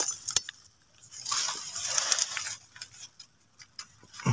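Leafy forest undergrowth rustling as plants are brushed and pushed aside close up, with a couple of sharp clicks.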